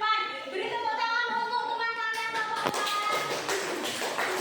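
High-pitched voices singing a held tune, which about halfway through gives way to the noise of a busy classroom full of taps and knocks.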